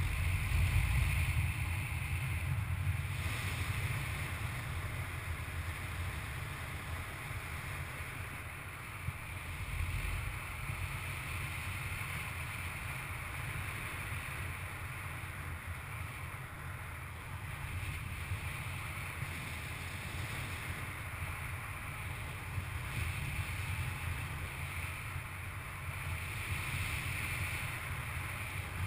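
Airflow of a paraglider in flight rushing over the camera microphone: a steady rumbling wind noise that swells and eases slightly.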